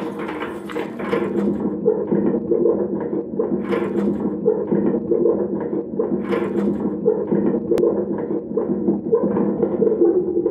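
Metal trolley on swivel castor wheels rolling over carpet, a continuous rattling rumble with a few sharper knocks.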